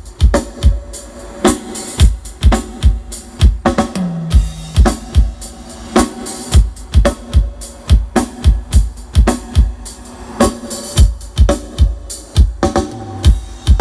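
Drum-kit beat played loud through a large stack of sound-system speaker cabinets, in a drum-sound test of the rig. A heavy kick drum thumps steadily about two to three times a second, with snare hits and a short low bass note about four seconds in.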